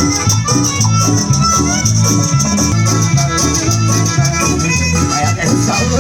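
Loud instrumental Latin dance music with a steady, repeating bass beat.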